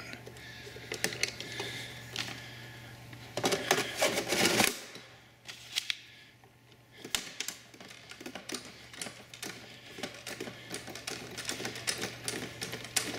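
Garmin GTR 200 avionics radio sliding into its metal mounting tray with a scrape, about four seconds in. Then a long run of small, quick metallic clicks and ticks as the 3/32" Allen wrench works the locking screw and pawls that draw the unit into the stack.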